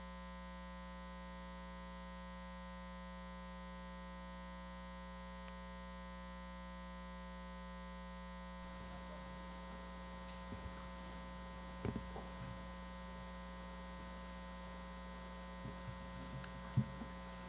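Steady electrical mains hum on the chamber's sound feed. About halfway through, faint room noise rises under it, and a few short knocks follow, the loudest near the end.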